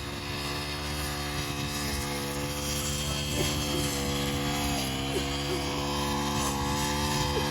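Honda GX35 four-stroke engine of a UMK435 brush cutter running steadily, its pitch dipping briefly about five seconds in and then recovering.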